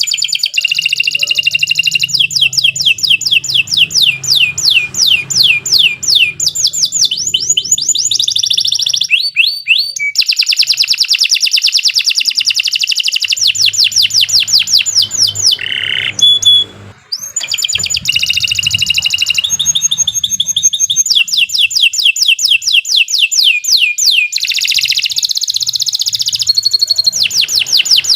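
Canary singing a long, continuous song of rapid trills, each a fast run of repeated high downward-sweeping notes, changing from one trill to the next with brief breaks about nine and sixteen seconds in.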